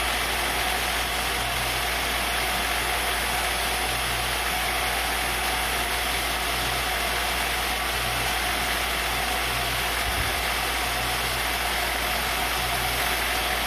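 CNC-converted X2D mini milling machine running steadily: its belt-driven spindle turns while the end mill cuts into a pine board. A faint low pulse repeats about every second and a half under the steady sound of the machine.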